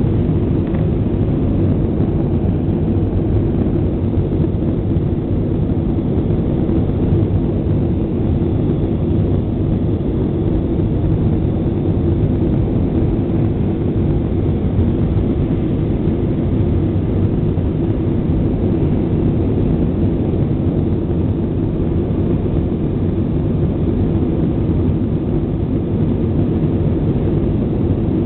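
Steady low rumble of an Airbus A320's jet engines and rushing air, heard inside the passenger cabin during the climb after takeoff.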